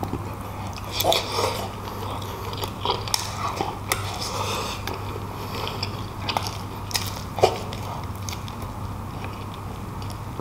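A man chewing a full mouthful of braised beef shank meat: wet, irregular smacking and squishing with small clicks of lips and teeth, over a steady low hum.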